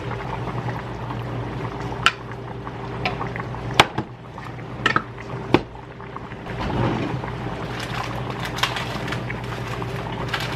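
Chicken hearts and gizzards bubbling in a pot on the stove over a steady low hum, broken by a handful of sharp clinks and knocks as the pot is stirred with a wooden spoon and utensils are handled.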